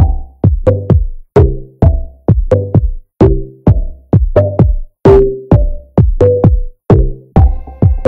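Background electronic music with a steady drum-machine beat, about two hits a second over bass and pitched notes; held high tones come in near the end.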